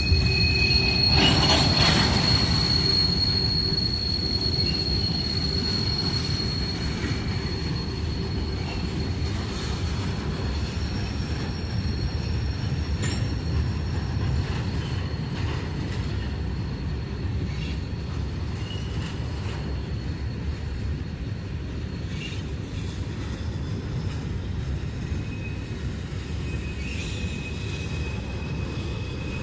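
CSX freight train rolling past, with the steady rumble of its wheels on the rails and thin, high wheel squeal. The squeal is strongest in the first several seconds and comes back faintly near the end.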